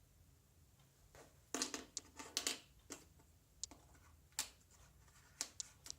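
Scattered light clicks and knocks of Cubetto's wooden coding blocks being handled and slotted into its wooden control board: a quick cluster about a second and a half in, then single clicks a second or so apart.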